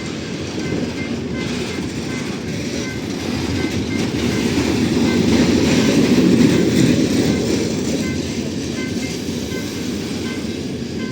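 Freight train passing, its wagons rumbling and clattering over the rails, swelling to its loudest about halfway through.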